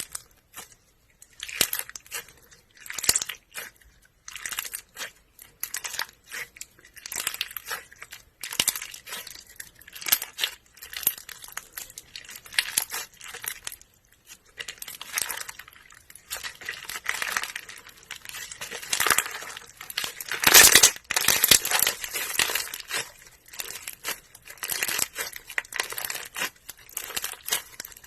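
Slime being squeezed and worked by hand, crackling and popping in irregular bursts of small clicks, with the loudest crackle about two-thirds of the way through.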